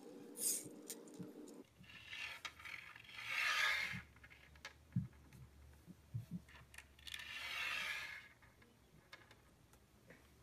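Skittles candies being slid and set down on a tabletop a few at a time: two longer scraping sweeps and a few light clicks.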